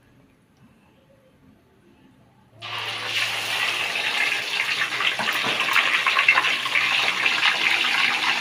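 Hot cooking oil in a wok bursting into loud sizzling and crackling as a whole gourami fish is slid in about two and a half seconds in, then frying steadily. Before that there is only faint quiet.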